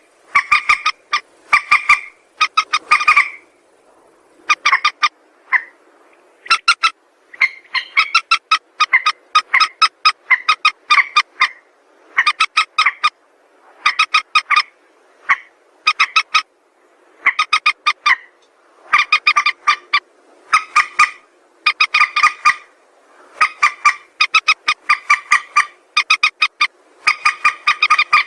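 Mandar sawah rail calling: short bursts of rapid, evenly pulsed notes, repeated about once a second with brief pauses between bursts.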